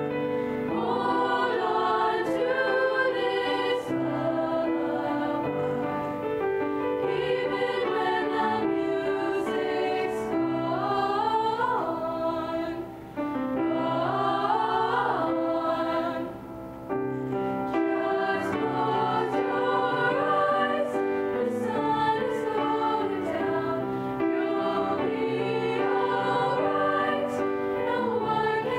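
Middle-school chorus singing with grand piano accompaniment. The sound dips briefly twice near the middle.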